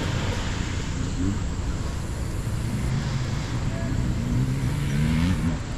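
Dirt bike engine running at low revs with small throttle changes, with people's voices in the background.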